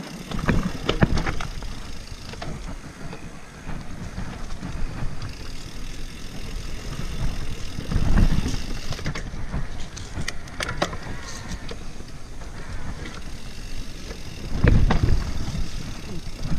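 E-mountain bike riding fast down a rooty dirt singletrack: tyres rumbling over the ground with the bike rattling and clicking over bumps, and heavier rumbling surges about eight seconds in and again near the end.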